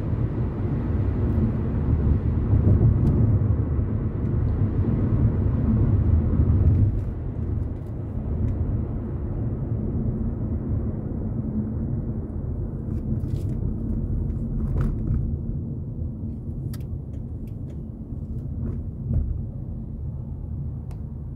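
Car road noise and engine rumble while driving. Louder for the first seven seconds, then dropping and fading as the car slows, with a few faint clicks later on.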